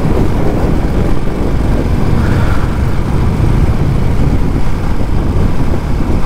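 Motorcycle on the move: engine running under a steady rush of wind and road noise, heaviest at the low end.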